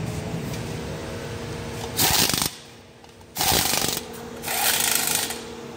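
A handheld power screwdriver runs in three short bursts, driving bolts into a chrome motorcycle rear mudguard, over a steady workshop hum.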